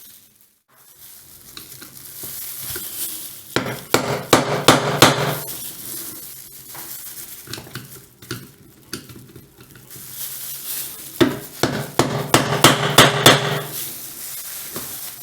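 Small hammer tapping on metal at a door lock's stuck screw to break it loose: two bouts of quick ringing metallic knocks with quieter clinks and handling between them.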